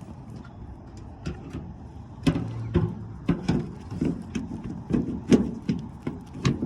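A run of irregular sharp knocks and clicks, starting about two seconds in, as a tail light housing is handled and pressed into place on the car.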